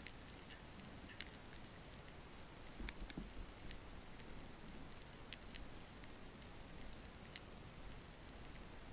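Underwater ambience heard through a GoPro's waterproof housing over a rocky reef: a faint steady hiss with scattered sharp clicks and crackles, the loudest about a second in and near the end, and a brief low rumble around three seconds in.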